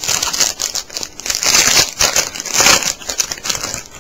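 Foil wrapper of a Topps Finest trading-card pack crinkling and crackling as it is handled and crumpled by hand. The noise is loudest about two seconds in and stops just before the end.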